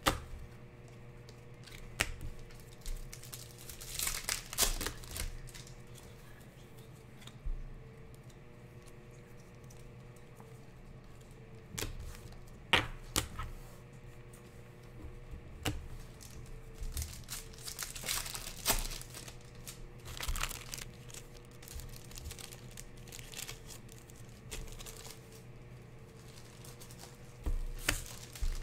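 Trading cards and their foil pack wrappers being handled: crinkling, rustling and light taps in short scattered bursts, over a faint steady low hum.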